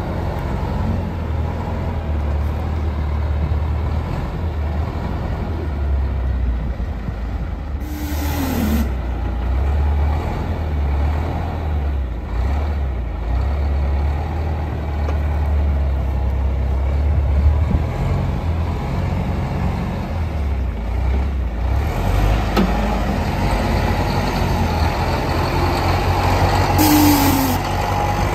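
Caterpillar 944 wheel loader's diesel engine idling steadily with a low rumble, broken twice by a short hiss with a falling tone, about eight seconds in and again near the end.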